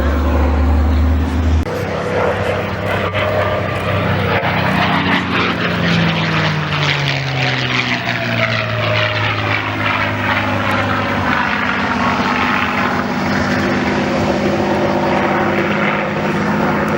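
Propeller airplane flying a low aerobatic display pass, its engine note falling in pitch as it goes by and then running on steadily. A low rumble stops about a second and a half in.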